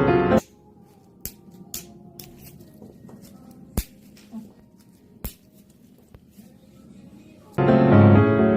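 Piano background music cuts off just after the start, leaving a quiet room in which a handful of short, sharp clicks and taps of small hard objects sound, the loudest about four and five seconds in. The piano music comes back near the end.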